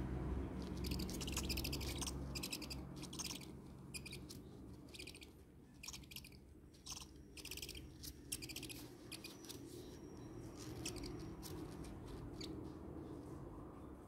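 Owl chicks giving a series of short, raspy hissing calls, about one or two a second, thinning out near the end. A low hum runs underneath for the first couple of seconds.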